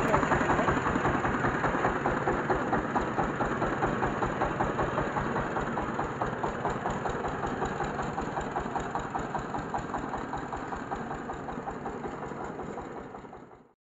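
Diesel engine of a mobile rice-milling vehicle running with an even, rapid beat, fading gradually as the vehicle drives away. The sound cuts off suddenly near the end.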